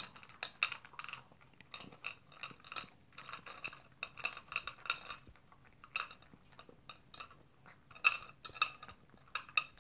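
A dog eating from a bowl: its teeth and food click and clink against the bowl in quick, irregular bursts, with chewing between them.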